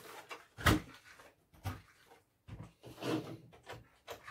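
Plastic body shell of a Redcat Piranha TR10 RC buggy being set onto its chassis and pressed down: a sharp plastic knock about two-thirds of a second in, then a few softer knocks and clatters.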